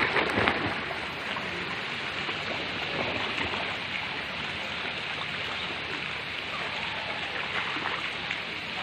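Steady rush of water from a spray fountain column falling onto a shallow splash pool. A few short splashes from children wading come in the first moment.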